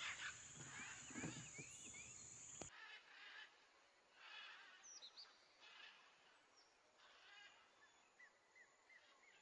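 Faint birdsong: short rising chirps repeated in quick series, with a steady high-pitched insect drone that cuts off abruptly about three seconds in.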